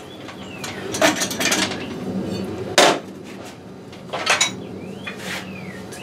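Metal clanks and knocks as a Midland Ross vacuum brake booster's steel shell is freed from a screw-press test stand and lifted off: three sharp clanks, the loudest about three seconds in. A couple of faint squeaks come near the start and near the end.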